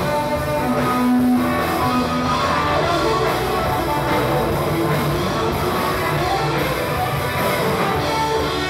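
Live rock band playing, with electric guitar and drums.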